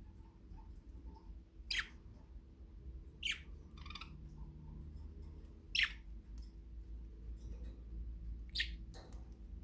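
Pet budgerigar giving short, sharp chirps, four of them a second or two apart, with a brief chattering warble about four seconds in.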